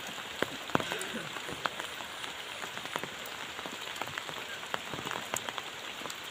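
Steady rain falling: an even hiss with many separate drops ticking close by.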